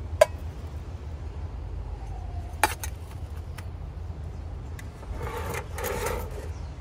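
A metal spatula clinks sharply against a metal pan twice, about two and a half seconds apart, each with a short ring. Near the end comes a longer stretch of scraping and handling noise. A steady low rumble runs underneath throughout.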